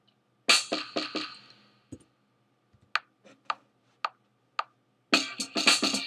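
Drum machine sounds from Native Instruments Maschine in Logic: a loud drum hit with a long fading tail about half a second in, then a metronome count-in of sharp clicks about twice a second. A full drum-machine beat starts about five seconds in as recording begins.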